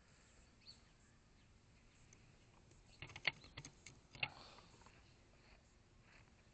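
Near silence, broken about three to four seconds in by a short cluster of clicks and knocks: a micro FPV drone with a small action camera being handled and set down on concrete pavement, its motors not running.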